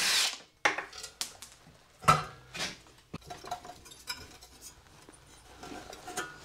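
Metal tools clinking and knocking against a small engine's head and the workbench as they are handled and set down: a string of separate sharp clinks, the loudest right at the start and about two seconds in.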